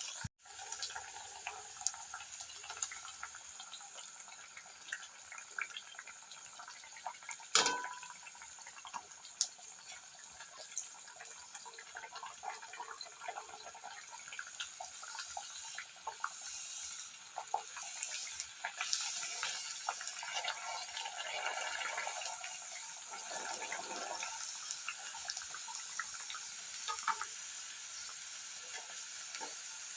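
Puri dough rounds sizzling and crackling as they deep-fry in hot sunflower oil, a steady hiss dotted with small pops. One sharp click about eight seconds in.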